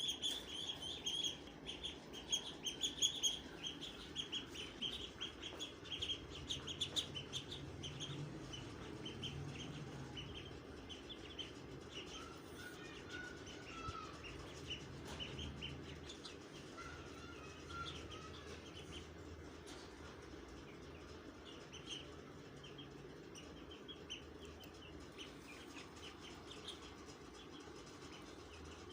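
Baby poultry peeping in rapid, short, high cheeps, busiest in the first few seconds and then sparser, with a few lower calls partway through over a steady low hum.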